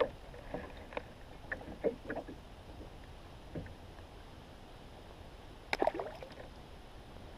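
Light knocks and clicks of a small crappie being unhooked by hand in a kayak, then a short splash about six seconds in as the fish is tossed back into the water.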